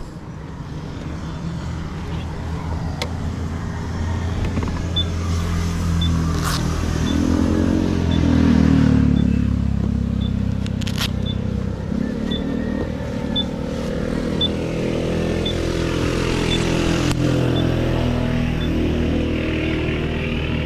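Yamaha Aerox 155 scooter's single-cylinder engine under way, its pitch rising and falling as the rider accelerates and eases off, highest about eight seconds in. A faint high tick repeats about twice a second through the second half.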